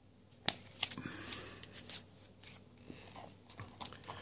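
Trading cards being handled and put down: a series of light clicks, snaps and rustles, thickest in the first two seconds and thinning out after.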